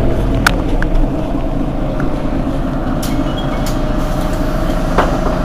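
Engine of a Mercedes-Benz Citaro G C2 articulated bus idling steadily at a stop: a steady low rumble with an even whine over it, and a couple of light clicks.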